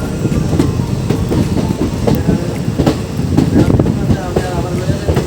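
Passenger train running, a steady rumble with wheels clicking and clattering over rail joints.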